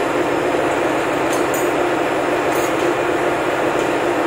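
Steady, loud drone of ship engine-room machinery, a dense mechanical noise with a constant hum, with a few faint metallic clicks about one to three seconds in.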